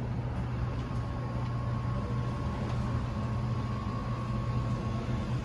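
Soft-serve ice cream machine running as soft serve is dispensed into a cone: a steady low hum, with a thin high whine from about a second in until near the end.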